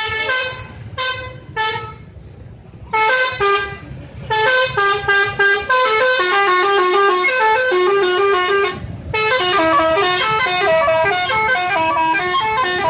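Bus 'telolet' musical horn: three short toots, then a long run of quick stepping notes playing a tune, with a brief break about nine seconds in.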